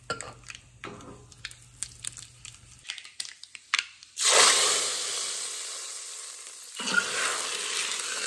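Curry leaves and dried red chillies crackling with small pops in hot ghee in a small pan. About four seconds in comes a sudden loud sizzle as the hot ghee tempering hits the sambar; it dies away over a couple of seconds, then flares up again near the end.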